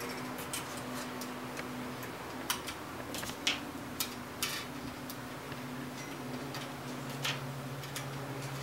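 Scattered light metallic clicks and taps at an irregular pace, as the stator core of a GM 10SI/12SI alternator is worked loose by hand and knocks against the case. A faint steady hum sits underneath.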